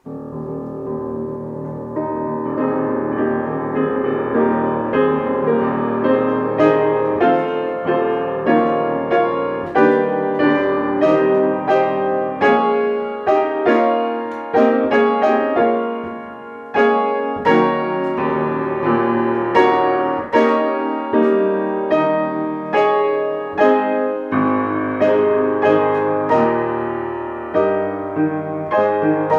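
Solo piano playing a slow, gentle piece, with a steady stream of struck notes over sustained bass.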